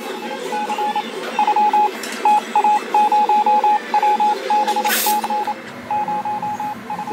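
Rapid electronic beeps at one steady pitch, sounding in irregular clusters like Morse code over a low background. A brief hiss comes about five seconds in.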